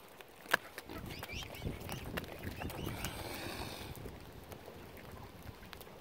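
Faint calls of waterfowl (mallard ducks and mute swans with cygnets) over a low rumble, with one sharp click about half a second in.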